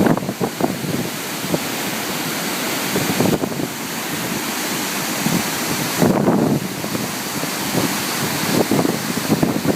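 Water rushing steadily at a dam, with wind buffeting the microphone in gusts, the strongest about six seconds in.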